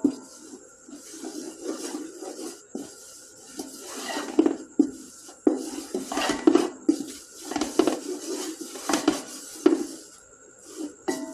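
Spoon scraping and knocking against a cooking pot while flour is stirred into melted butter for a white-sauce roux, in irregular strokes about every second or two.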